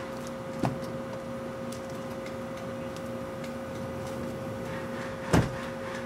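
A steady hum throughout, with a small knock about half a second in and a louder single thump a little past five seconds, as someone gets into a pickup truck's cab.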